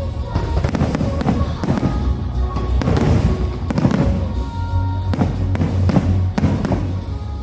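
Fireworks going off in a rapid, irregular series of bangs and crackles over a continuous low rumble, with music playing along.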